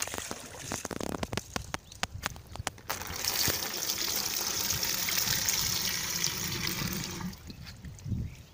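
A few light knocks, then a bucket of water poured out over a pump pipe, splashing steadily onto the canal's surface for about four seconds before it stops.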